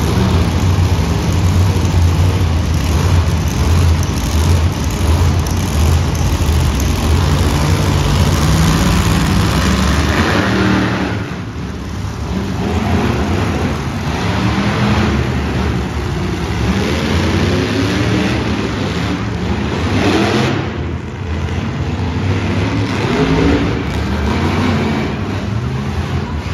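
Several monster truck engines running loud with a steady deep rumble. About ten seconds in, they change to repeated revving, the pitch rising and falling as the trucks drive on the dirt floor.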